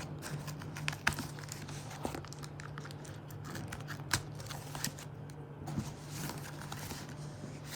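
Paper and packaging crinkling and rustling with scattered small clicks as a delivery package is opened by hand.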